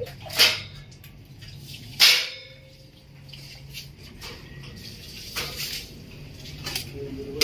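Stainless steel window grill scraping and rattling against its metal wall brackets as it is handled into place: two loud, short scrapes in the first two seconds, then fainter knocks later.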